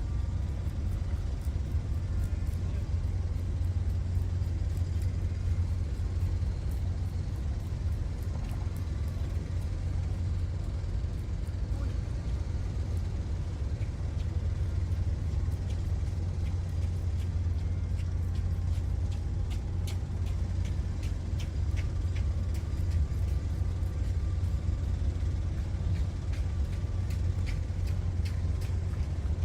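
An engine running steadily, a constant low drone with faint ticking over it.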